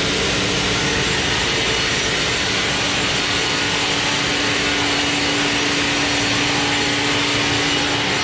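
Sawmill machinery running steadily and loudly, a constant noise with a steady hum under it.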